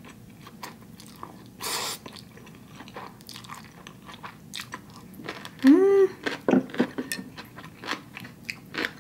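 Close-miked eating: spicy instant noodles being slurped and chewed, with many small wet mouth clicks, a slurp near two seconds in, and a short hummed "mm" of enjoyment about six seconds in.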